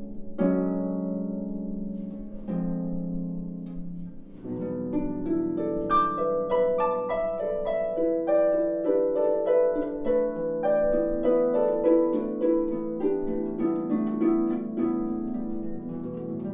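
Solo concert pedal harp playing: two chords ring out about two seconds apart, then from about four seconds in a flowing passage of quick plucked notes.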